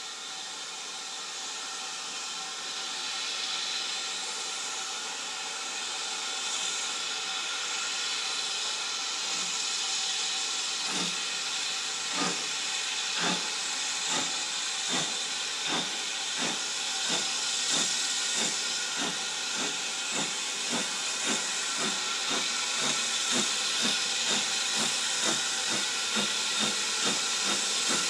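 BR Standard Class 4MT 2-6-0 steam locomotive No. 76017 starting away with a passenger train. Steam hisses steadily from its open cylinder drain cocks. From about ten seconds in, exhaust beats come through and quicken as the train picks up speed.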